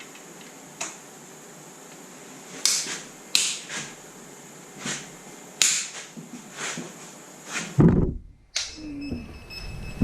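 Scattered sharp clicks and knocks of hand tools on metal while cylinder head bolts are tightened in sequence, about eight separate strokes several seconds apart. Near the end the background changes abruptly and briefly cuts out.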